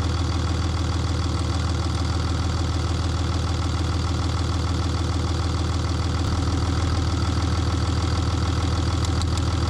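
6.7 Cummins inline-six turbo diesel idling steadily, heard close up over the open engine bay, with an even, rapid diesel clatter over a low drone. The engine is still warming up.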